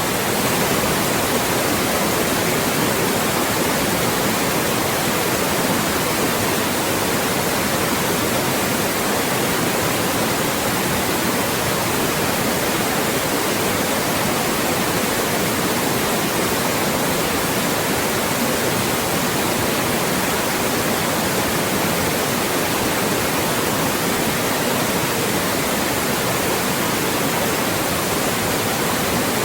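Loud, steady white noise: an even hiss across the whole range that does not change.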